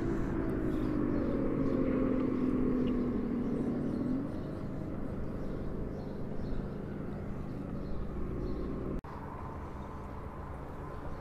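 An engine running, its pitch sliding down over the first four seconds and then fading into the background. About nine seconds in the sound cuts out for an instant, and a steady low hum follows.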